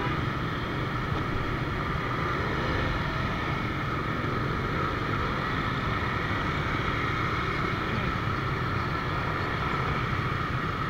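A small motorbike engine running steadily at cruising speed, heard from the rider's seat, with the even hum of the surrounding motorbike traffic.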